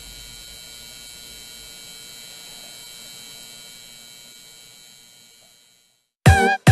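Steady electric hum from an intro sound effect, several held tones over a faint hiss, slowly fading out about five and a half seconds in. Short, loud musical chords start just before the end.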